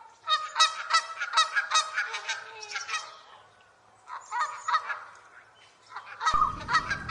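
Geese honking: a quick series of harsh, repeated honks, a short pause, then a few more. Near the end a new, noisier background comes in under further calls.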